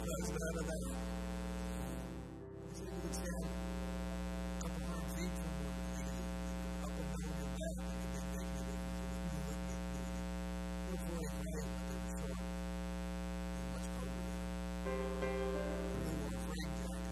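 Steady electrical mains hum with a buzzy stack of harmonics, dipping briefly about two and a half seconds in, with faint music under it.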